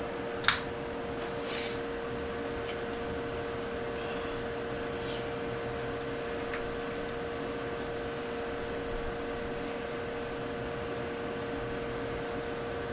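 A steady machine hum with a held tone. About half a second in there is one sharp click, followed over the next few seconds by a few fainter clicks and light rattles.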